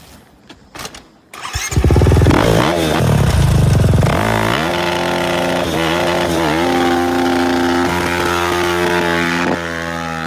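KTM motorcycle engine starting about a second and a half in, revving unevenly for a couple of seconds, then settling into a steady idle with a short blip of throttle midway. A few light clicks come just before it fires.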